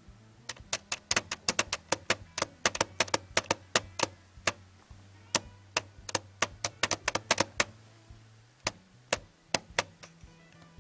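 Lenovo ThinkPad T540p touchpad being clicked over and over: sharp, loud clicks in quick irregular runs of several a second, with a couple of short pauses. The click is louder than it should be and feels flimsy, which the owner thinks may be a fault of his particular unit.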